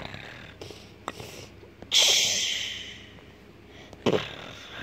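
A person's breath close to the microphone: a hissing exhale about two seconds in that fades over about a second, and a shorter, sharper breath about four seconds in.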